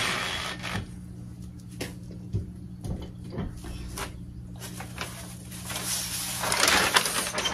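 Sheet of butcher paper rustling and crinkling as gloved hands lift it off a heat press platen, loudest from about five seconds in, after a few light taps and knocks. A steady low hum runs underneath.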